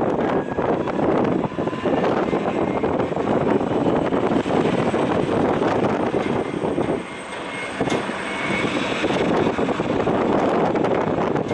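Twin-engine jet airliner on its takeoff roll, engines at takeoff thrust and heard from behind as it accelerates away: a loud, steady rushing noise that dips briefly a little past halfway.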